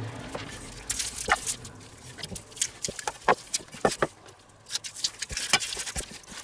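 Red plastic spice shaker shaken over a bowl of raw pork cubes in short, irregular rattling shakes, with the gloved hand squishing and turning the meat in a stainless steel bowl between them.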